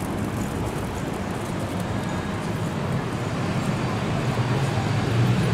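Road traffic noise from buses and cars: a steady hum with a low engine rumble that grows louder near the end.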